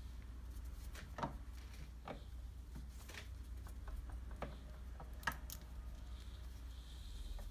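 Schaublin 102 lathe spindle and W25 reduction gear being turned by hand: about five irregular metallic clicks, with the loudest a little past five seconds in, over a faint steady low hum.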